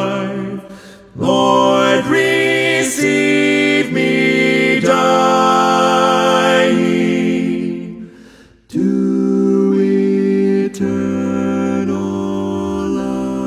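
Four-part a cappella male vocal harmony, one singer multitracked, singing the closing line of a hymn in slow chords. Short breaks for breath come about a second in and about eight and a half seconds in, and the final chord is held from about nine seconds on.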